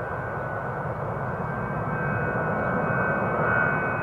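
Xian Y-20A Kunpeng's four D-30KP-2 turbofan engines running: a broad jet rush with a steady high whine on top, swelling about three seconds in and then easing.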